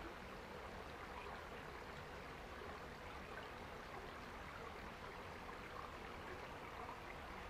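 A small woodland stream running and trickling steadily, faint and even.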